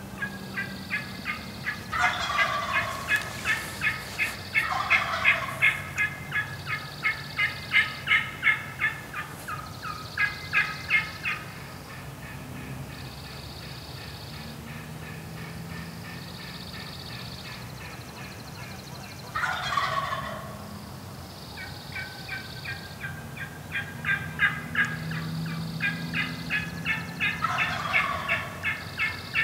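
Wild turkey gobbling several times, each gobble a short call falling in pitch. Between gobbles, long runs of fast, evenly repeated high chirps.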